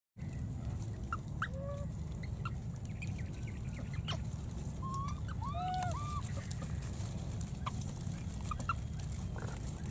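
Several short, high animal calls that arch up and down in pitch, mostly clustered about halfway through, with a few sharp clicks, over a steady low rumble.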